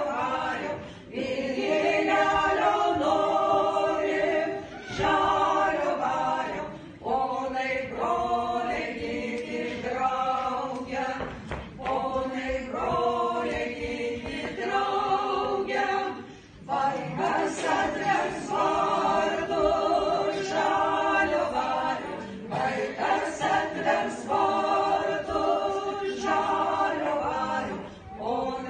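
Women's folk ensemble singing a cappella together, in long sustained phrases broken by short pauses for breath.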